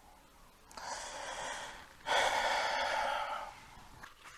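A man's deep sigh: a breath drawn in, then a longer, louder breath out about two seconds in.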